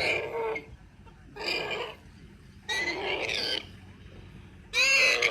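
An animal calling loudly four times, each call under a second long with a wavering pitch, about one every second and a half.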